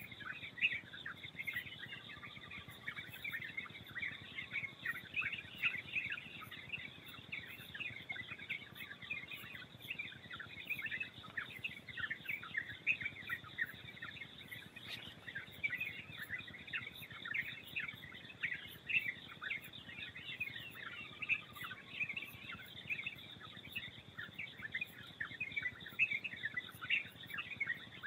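Many birds chirping continuously in a dense chorus of rapid high chirps, over a steady high-pitched tone; now and then a lower, drawn-out call sounds.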